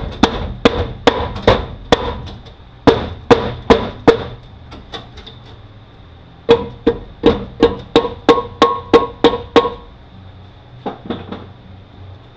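Hammer blows on the metal case of a Mazda six-speed manual transmission, knocking the front case loose from the center case. The blows come in quick runs, each with a short metallic ring: a burst of strikes, a pause, a faster run of about ten, then two last taps.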